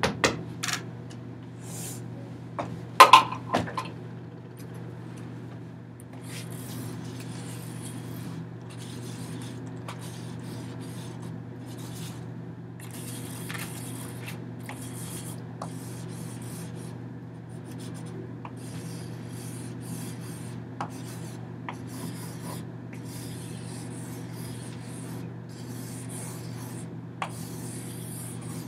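Rubbing strokes on a large sheet of paper hung on a wall, coming in irregular hissing patches over a steady low hum. About three seconds in there is a sharp knock with a short ring.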